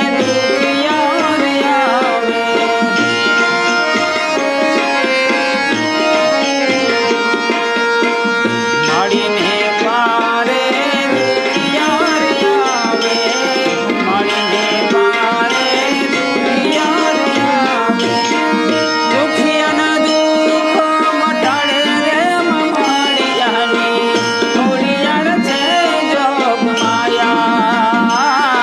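Gujarati garba music: tabla playing a steady rhythm under a sustained melodic accompaniment with sliding melodic lines.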